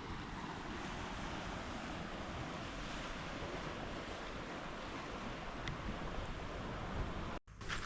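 Steady rushing of wind and ocean surf, a continuous even noise with no distinct events. It cuts off abruptly for an instant near the end.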